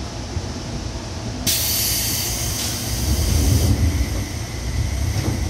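Seibu 2000 series electric train: a sudden loud burst of compressed-air hiss starts about a second and a half in and cuts off about two seconds later, over the car's steady low rumble.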